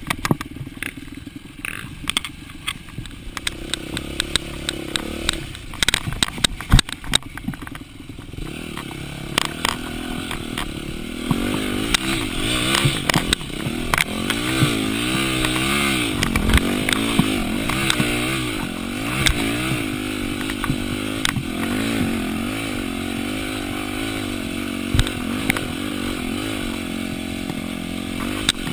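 Yamaha dirt bike engine under hard riding, its pitch rising and falling as the throttle is worked, with sharp knocks and clatter from the bike over rough ground. The engine sits lower for the first several seconds under frequent knocks, then grows louder and revs up and down from about ten seconds in.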